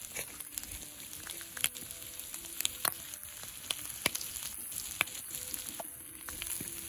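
Bacon and eggs sizzling as they fry: a steady hiss with scattered pops and crackles.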